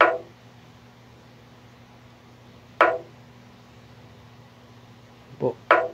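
Chess app's piece-move sound effect: short clacks as moves land on the board, one at the start, one about three seconds in and a quick pair near the end, over a faint low steady hum.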